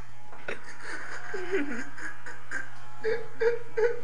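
A person laughing, with three short bursts of laughter near the end, over the steady low hum of electric hair clippers.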